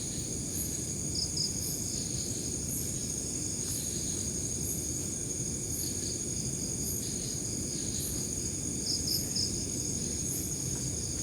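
Crickets and other night insects trilling steadily in a high, continuous chorus, with a few short sharper chirps. A steady low rumbling noise runs underneath.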